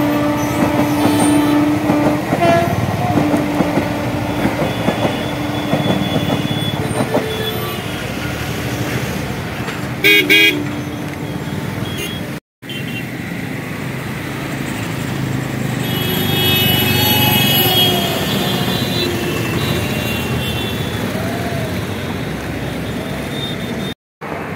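Trains and road traffic running together under continuous noise, with vehicle horns honking: a long held horn note near the start and a short honk about ten seconds in.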